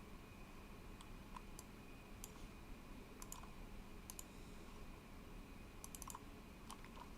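Faint, scattered clicks from computer controls over a low steady hiss, with pairs of clicks about three and four seconds in and a quick run of about four clicks around six seconds in.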